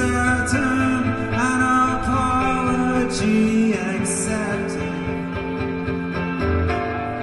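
A man singing over electric guitar in a live performance. The voice stops about five seconds in, leaving the guitar ringing on its own.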